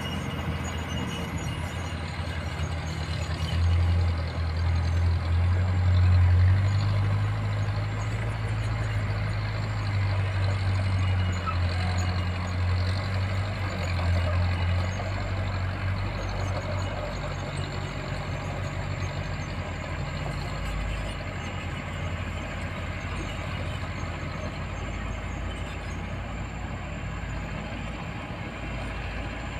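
Diesel engines of a Kobelco excavator and dump trucks running at an earthworks site. The low engine drone swells about four seconds in and eases off after about seventeen seconds.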